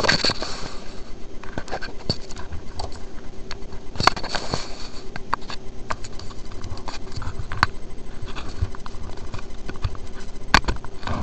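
LS-E clearomizer's coil fired dry, its cotton-gauze wick crackling and sizzling as it scorches. There is a fast, even pulsing crackle, with three sharp clicks.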